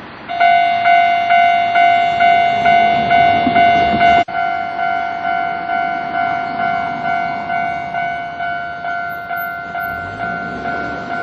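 Japanese level crossing's electronic warning bell starting up and ringing in a steady, fast 'kan-kan' rhythm of about two and a half strikes a second, the signal that a train is approaching. There is a brief break about four seconds in.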